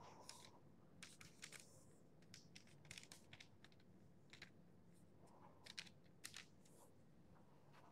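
Near silence, with faint scattered soft ticks and rustles of fingers pinching choux dough and pressing it down on parchment paper.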